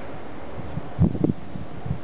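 Steady outdoor background noise, broken about a second in by a few low, irregular buffets of wind on the microphone.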